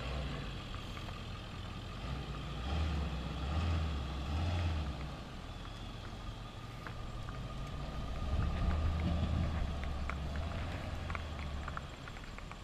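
A motor vehicle's engine running, its low hum growing louder twice for a few seconds each time.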